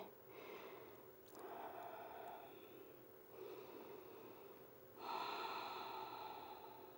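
A woman breathing slowly and deeply while holding a yoga stretch: four soft breaths in and out, the longest and loudest starting about five seconds in.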